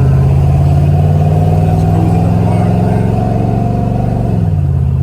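Car engine running steadily under way, its pitch easing slightly up and then dropping about four and a half seconds in as it settles lower.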